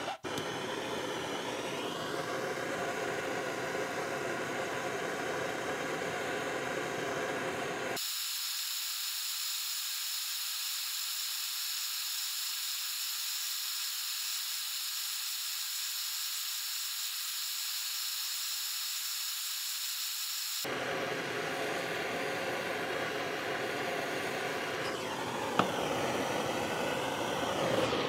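Handheld gas blowtorch flame hissing steadily as it heats a steel knife blade to red heat for hardening. For about twelve seconds in the middle the sound thins, losing its lower part, and a single sharp click comes near the end.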